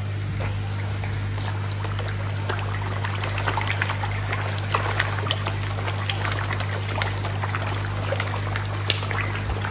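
Water trickling and splashing in small irregular drips, over a steady low electrical hum such as a pond pump or aerator gives.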